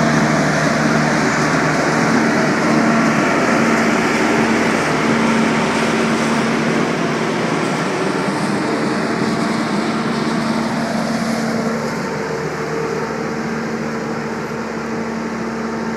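Truck-mounted leaf vacuum running: the loud, steady drone of its engine and suction fan with a constant hum, easing off slightly over the last few seconds.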